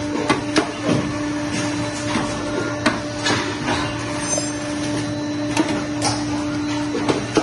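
Automatic N95 cup mask machine running: a steady hum under irregular clicks and clacks from its moving mechanisms. The hum cuts off near the end.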